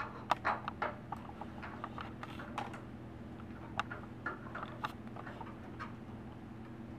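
Light clicks and scrapes of a new spin-on oil filter being threaded by hand onto a Kawasaki engine: a quick cluster in the first second, then scattered single clicks, over a steady low hum.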